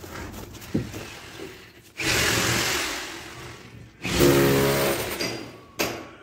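A power tool running in two bursts of a second and a half to two seconds each; the second burst has a motor whine in it.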